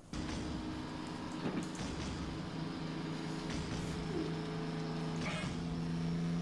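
Soundtrack of a South Indian action-film fight scene: a steady drone of held low tones that shifts pitch in steps a couple of times, with a few faint hits.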